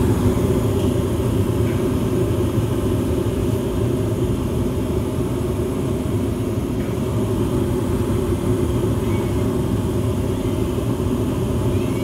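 Evcon/Coleman 80% low-NOx gas furnace running: a steady, even low rumble of the firing burners and the motor-driven blowers, heard close up inside the open cabinet.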